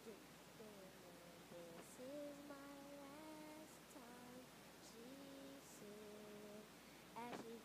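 A girl humming a wordless melody softly, in long held notes that step up and down between short pauses.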